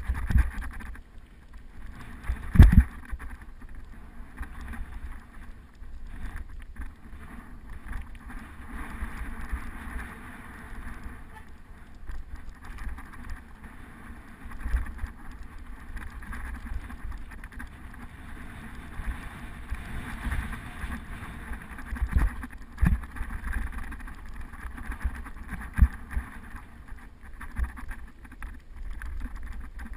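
Wind buffeting the microphone over the crunch and rattle of a mountain bike riding a rough dirt and gravel trail. Sharp knocks come as it hits bumps, the loudest about three seconds in and a few more near the end.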